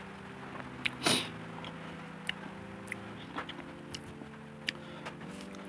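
Soft background music of held chords that shift every couple of seconds, under close eating sounds: small clicks of a spoon and mouth while chewing a soft steamed bun, with one louder bite or mouth noise about a second in.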